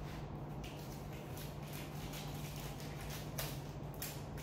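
Quiet room with a steady low hum and a few faint, short handling sounds as a small seed packet is handled.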